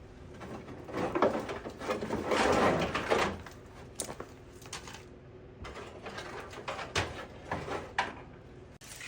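Scattered clunks and clatters of parts being handled and pulled off a truck's front end, with a louder stretch of rough noise about two to three seconds in.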